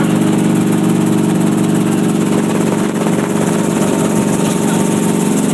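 Helicopter in flight heard from inside the cabin: its engine and rotor make a loud, steady drone of several even tones.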